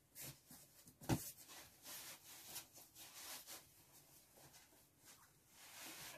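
Clothes and soft items rustling and rubbing as they are pushed into a cardboard box, with one short knock about a second in.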